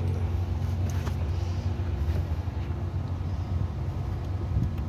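Steady low hum of a running engine or motor, with a few faint clicks.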